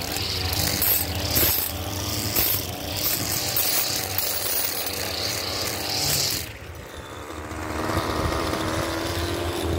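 Gas string trimmer running at high revs and cutting grass. About six and a half seconds in it eases off to a lower, steadier run.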